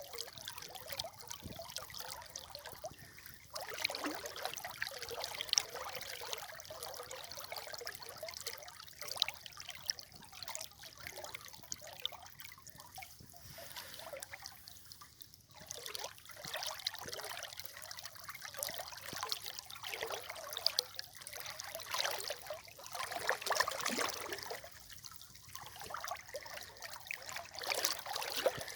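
River water trickling and splashing in a steady, unbroken flow, its level swelling and dipping unevenly.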